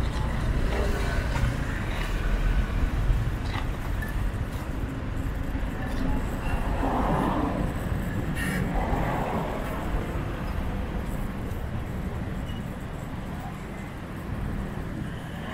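Road traffic noise heard while driving through town streets: a steady low rumble of engine and tyres, swelling briefly twice about halfway through.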